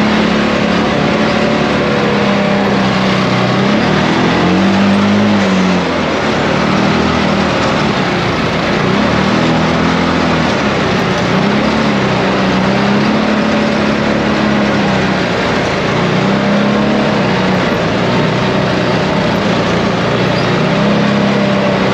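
ATV engine running on the trail, its pitch rising and falling every two to three seconds as the throttle is opened and eased, over a steady rushing noise.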